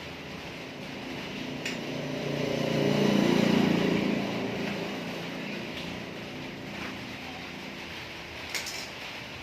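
A motor vehicle passing by: its engine grows louder to a peak about three seconds in, then fades away. A couple of sharp clicks can be heard, one early and one near the end.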